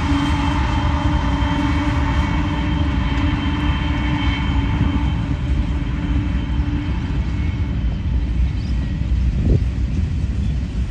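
Union Pacific freight train rolling past, its cars making a steady low rumble on the rails. A steady humming tone over the rumble fades out after about seven seconds.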